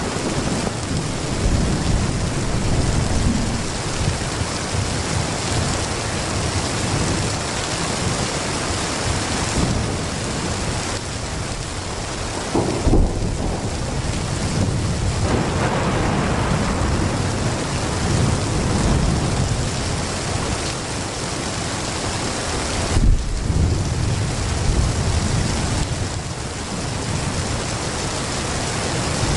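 Heavy rain falling steadily with thunder rumbling low and continuously underneath. Two brief, louder low booms stand out, a little under halfway through and about three-quarters of the way in.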